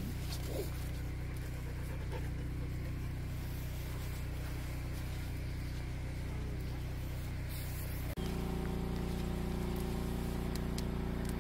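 A steady low mechanical hum made of several level tones, without letting up. About eight seconds in it changes abruptly to a slightly louder hum with a different set of pitches.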